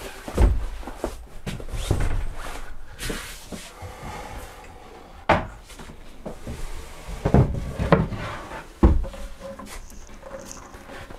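Wooden camper furniture panels being lifted and handled in a small cabin. Several separate knocks and thumps sound over quieter rustling.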